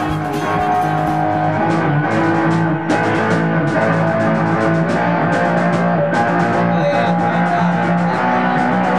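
Background music: a rock tune led by guitar, with a steady beat.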